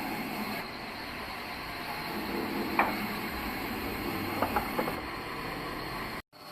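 Old bandsaw sawmill machinery running steadily, with sharp wooden knocks: one about three seconds in and a quick cluster a little later. The sound cuts out briefly near the end.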